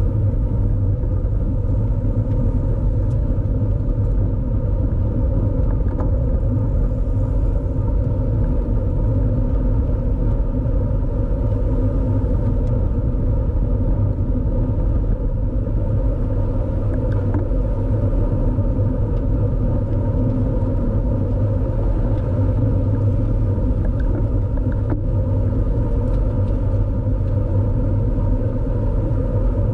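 Steady wind rush and road rumble on the microphone of a bicycle-mounted camera riding at road-race speed, a constant low roar without breaks.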